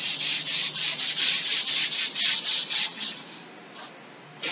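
Chalkboard being wiped clean with a cloth: quick back-and-forth rubbing strokes, about three or four a second, that stop about three seconds in, followed by one or two lighter wipes near the end.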